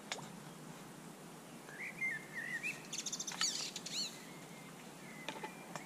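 Birds chirping over a steady outdoor hiss: a short warbling phrase about two seconds in, then a quick run of high chirps a second later. A few faint clicks come near the start and near the end.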